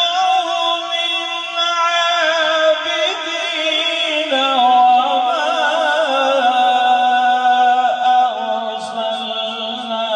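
A man's solo Quran recitation (tilawat) in a melodic chant, holding long, wavering, ornamented notes and stepping down to a lower pitch about four seconds in.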